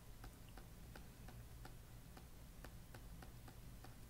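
Faint, regular ticking, about three clicks a second, over a low steady hum.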